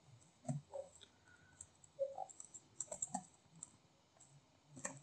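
Faint, irregular computer keyboard typing: scattered key clicks as code is typed.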